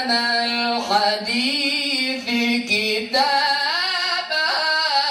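A male Quran reciter chanting in melodic tajweed style, drawing out long ornamented vowels that hold and bend in pitch. There are two sustained phrases with a brief break about three seconds in.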